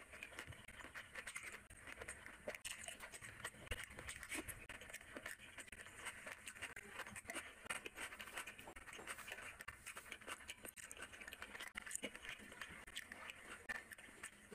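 A person eating rice and curry by hand: wet chewing and mouth sounds with many small clicks and smacks.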